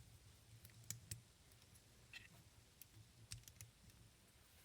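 Near silence with a faint low hum and a handful of faint, irregular small clicks.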